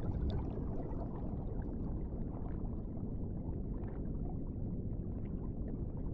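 Underwater ambience of water and rising air bubbles: a steady low wash with small bubbling pops and crackles.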